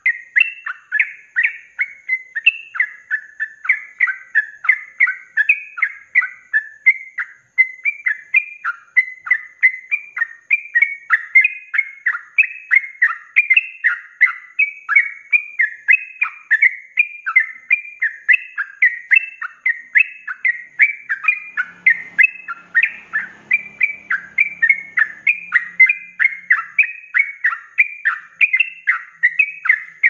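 Yellow-vented bulbul (trucuk) singing a rapid, unbroken run of short whistled notes that slide up and down, about three or four a second.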